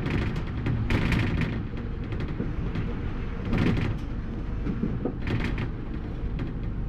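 A bus in motion, heard from the driver's cab: a steady low rumble from the engine and the road, with bursts of rattling and knocking about a second in, around three and a half seconds in, and again about five seconds in.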